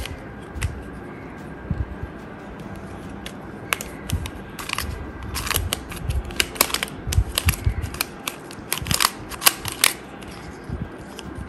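Plastic Banana Cube twisty puzzle being turned by hand: a run of quick clicks and clacks as its layers snap round, busiest from about four to ten seconds in, with soft handling thumps underneath.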